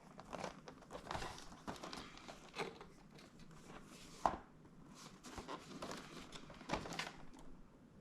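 Packaging being handled and unwrapped: irregular crinkling and rustling with scattered clicks, and one sharp click about four seconds in.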